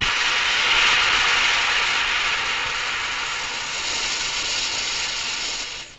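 A long, steady hiss of gas rushing out of a gas-filled cake that has been pricked with a fork, as the cake deflates. It starts abruptly, eases off slightly and stops near the end.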